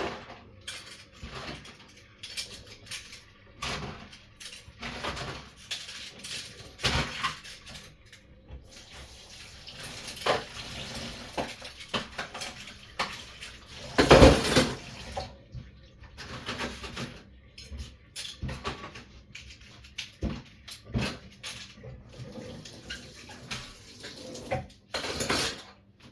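Washing up at a kitchen sink: dishes and cutlery clattering and knocking, with a tap running for a few seconds in the middle and one louder clatter about halfway through.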